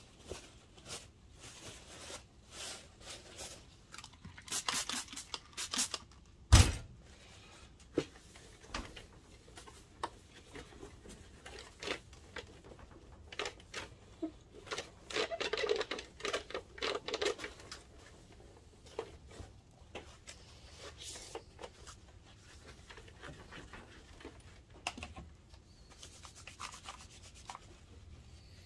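Paper towel rubbing and scrubbing over a plastic projector case in irregular bursts, with a single sharp knock about six and a half seconds in.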